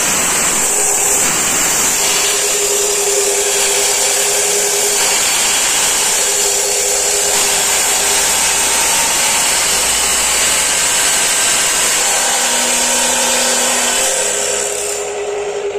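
Tiến Đạt F300 electric metal-cutting saw (2.0 HP, 220 V) running at speed: a steady hum with a loud high hiss. The hiss stops about fifteen seconds in.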